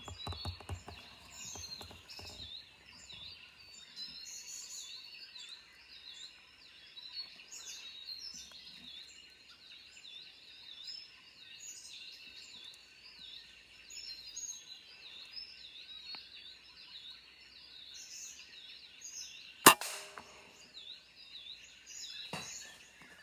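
A single sharp rifle shot near the end, over a steady background of high, quickly repeated chirping calls. A few soft handling clicks in the first two seconds.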